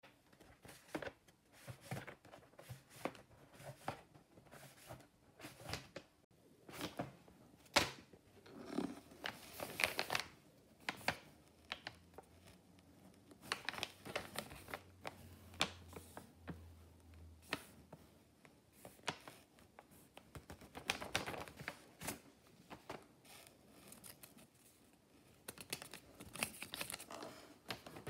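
Paper rustling and crinkling as a handmade paper blind bag is handled and opened: a string of irregular crackles and rustles, bunched more densely at a few moments.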